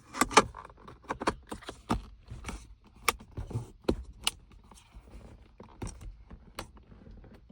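Hard plastic trim clicking and knocking as the console lid's plastic cover plate is handled and snapped back into its clips. The sharp clicks come irregularly, several a second, and the loudest is right at the start.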